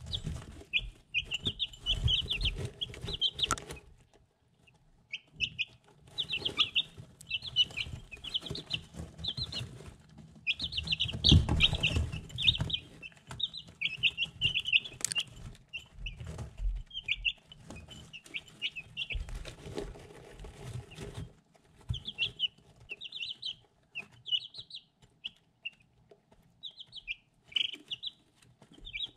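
Three-week-old chicks peeping in quick runs of short, high chirps, with sharp taps and low thumps as they peck feed from a ceramic dish; the heaviest thumps come near the middle.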